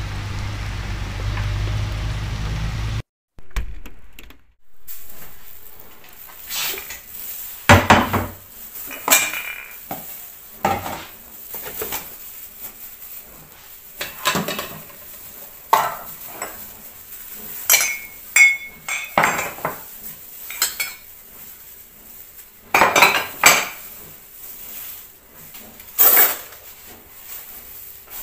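Dishes, pots and cutlery clinking and knocking as they are handled, in scattered sharp strikes at irregular intervals. It is preceded by a steady rushing noise with a low hum that cuts off abruptly about three seconds in.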